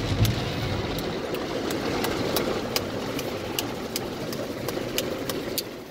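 Automatic car wash heard from inside the car: a steady rush of water spray and brushes working over the body and glass, with scattered sharp ticks. The rush drops off sharply near the end.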